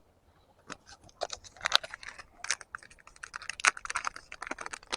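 Hands handling fishing tackle: a run of irregular small clicks and short rustles, starting about half a second in.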